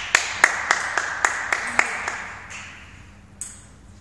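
A table tennis ball bouncing over and over, about eight quick pings in under two seconds that die away, then a single tap near the end.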